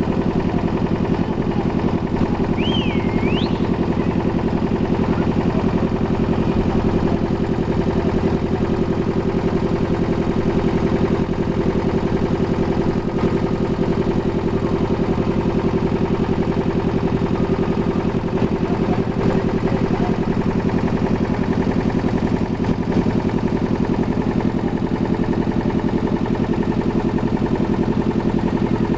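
A ferry boat's engine running steadily while the boat is underway, a loud, even drone. A short, high whistle-like chirp rises and falls about three seconds in.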